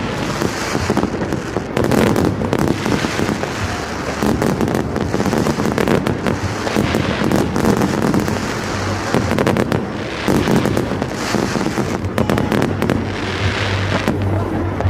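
Dense, continuous crackling of Diwali fireworks and firecrackers: many small cracks and pops overlapping without a pause.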